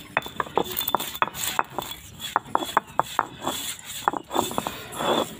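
Stone roller of a flat grinding stone (ammi) knocking and crushing whole fennel seeds and black peppercorns, a quick irregular run of sharp stone-on-stone clicks, about four a second. A short scraping rub comes near the end.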